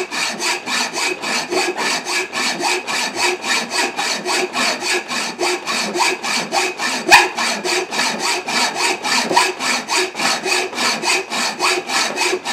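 Hand hacksaw with a new coarse blade cutting through cast aluminium, in fast, even rasping strokes about four a second. One sharper knock sounds about seven seconds in.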